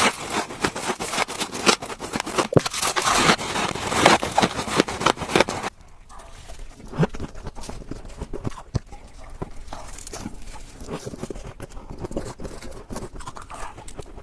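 Frost ice from a refrigerator freezer being scraped and crunched: a dense, scratchy crackle of many sharp clicks that cuts off abruptly about six seconds in, giving way to quieter, irregular crunches.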